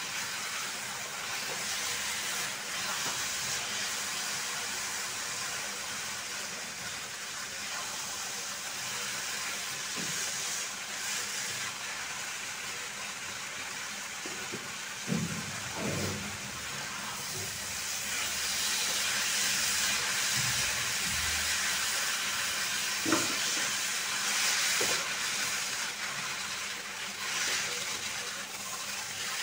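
Semai (fried vermicelli) with sugar and milk sizzling with a steady hiss in a nonstick frying pan as it is stirred with a silicone spatula, the sweetened liquid cooking off as the semai dries. A few soft knocks of the spatula come about halfway through, with a sharper one a little later.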